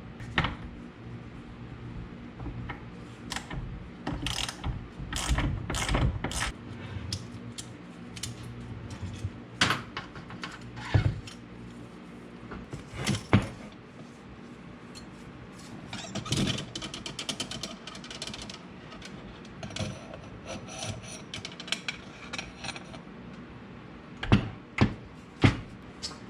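Hand tools working on a dirt bike's suspension: a ratchet wrench clicking, with scattered metal clinks and knocks, and a fast run of ratchet clicks about two-thirds through, over a steady low hum.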